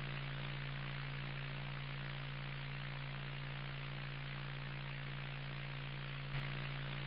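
Steady static hiss over a low electrical hum, cutting in abruptly out of dead silence, with a brief click about six seconds in.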